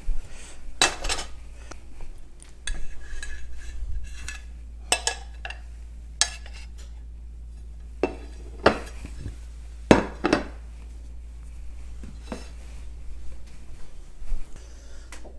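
Kitchen dishes knocking and clinking: a small ceramic bowl, a serving spoon and plates handled while rice is scooped and turned out onto the plates, in a scatter of separate knocks, the loudest about ten seconds in.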